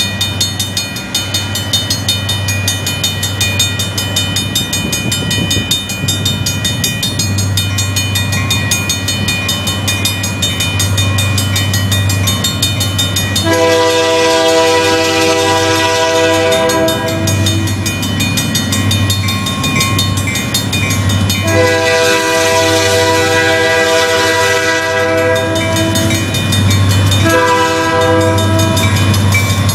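Pan Am Railways diesel freight locomotives approaching a grade crossing, engine rumble growing louder, sounding a multi-note chord horn in the crossing pattern: two long blasts, a short one, then a long one beginning near the end.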